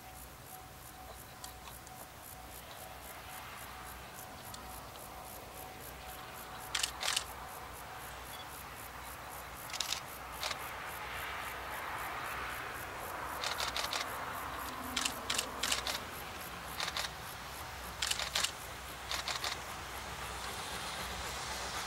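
C58 steam locomotive working slowly toward the listener: sharp exhaust chuffs, scattered at first and coming in quick groups from a little past halfway, over a hiss that grows louder as it nears.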